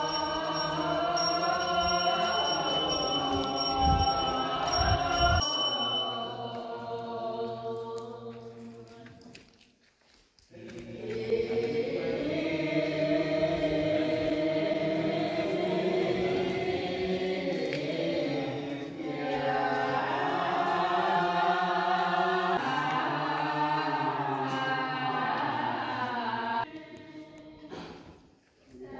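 Choir-like chanting in long, held notes. It fades away about ten seconds in, comes back, and dips again shortly before the end.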